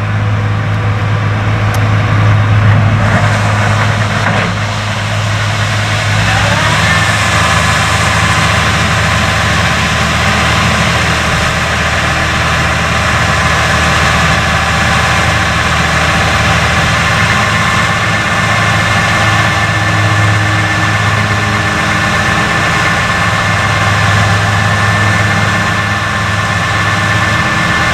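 Large diesel harvest machinery running steadily, with a high whine that rises about six seconds in and then holds.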